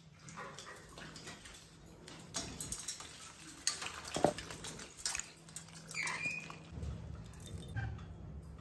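Scattered light clicks, taps and patter from a wet red-collared lorikeet moving about its cage by its bath bowl, with one short high squeak about six seconds in.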